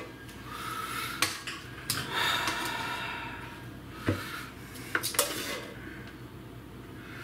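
Metal kitchen tongs clinking and rattling against an air fryer basket: a handful of sharp metallic clicks spread out over several seconds, the loudest about five seconds in.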